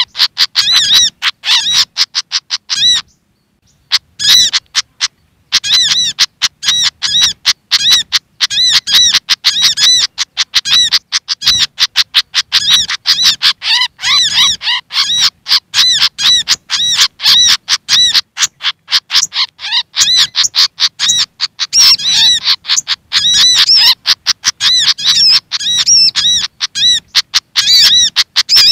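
Looped bird-trapping lure recording of agitated, scolding calls from a fantail (sikatan kipas) and a little spiderhunter (sogok ontong): rapid, sharp, high chips several a second in a dense run, with a brief break about three seconds in.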